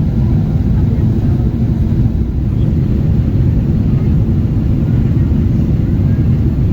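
Boeing 777-300ER airliner noise: a steady, loud low rumble of engines and airflow that does not change.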